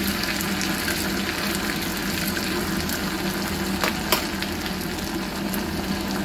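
Sliced onion and ginger-garlic paste frying in hot oil in a small pan: a steady sizzle of bubbling oil as the tempering (baghar) for the dal is made. A couple of sharp clicks sound about four seconds in.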